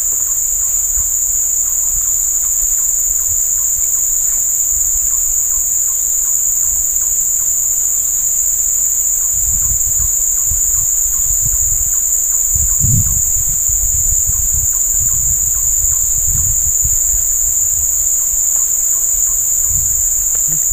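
Insects droning in the riverside forest: a steady, unbroken high-pitched buzz with an even higher band above it. A low rumble comes and goes in the second half, loudest about two-thirds of the way through.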